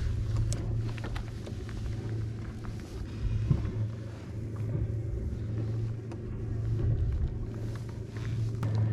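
Steady low rumble of wind buffeting the microphone on the open water, with scattered small knocks and clicks from handling on the kayak.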